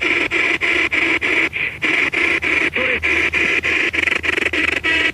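Spirit box sweeping rapidly through radio stations: a steady chopping of static and broken radio fragments, about seven bursts a second.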